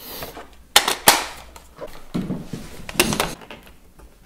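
Hard plastic parts of a PowerEgg X being handled and fitted onto a tripod mount: a few sharp plastic clicks and knocks, with rubbing and handling noise between them.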